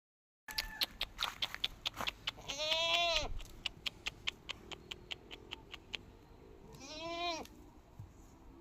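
Goat bleating twice, each call under a second long, rising then falling in pitch. A steady run of sharp clicks, about three or four a second, goes on through the first two-thirds.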